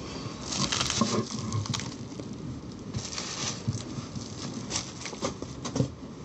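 Figure packaging being handled: bursts of rustling and crinkling with scattered light clicks and knocks, the longest rustles about half a second in and again about three seconds in.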